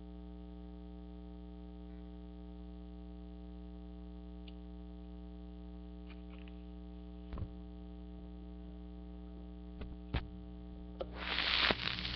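Steady electrical mains hum, with a few sharp clicks partway through. Near the end the song's music begins, louder than the hum.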